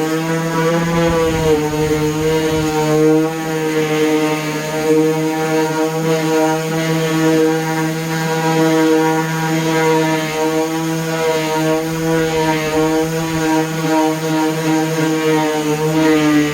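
DeWalt palm random orbital sander running steadily with a 3M Xtract Cubitron II disc against cedar, its motor hum wavering slightly in pitch as it is pressed and moved over the wood.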